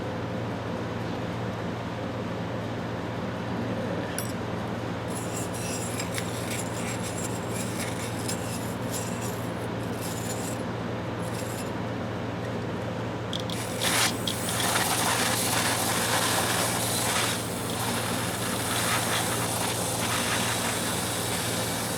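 Hand scraping and rubbing at the inside of a 1/2-inch-drive Proto ratchet head, working out old dried grease. Light scratches and clicks come first, then louder, steadier scraping from about two-thirds of the way in, over a steady low hum.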